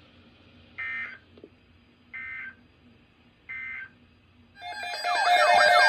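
Three short bursts of EAS digital end-of-message (SAME) tones, each a fraction of a second long and about 1.4 s apart, closing the severe thunderstorm warning. Near the end, a loud siren-like alert sound starts, its pitches sweeping up and down over steady tones.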